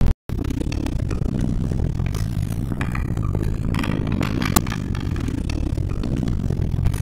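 Steady low rumbling noise with scattered faint clicks and clatter, and one sharp click about four and a half seconds in.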